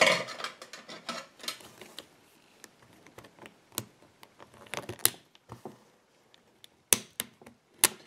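Light, irregular metal clicks and scrapes of a small tool prying at the retaining clip on the end of a combination bike lock, with a few sharper clicks in the second half.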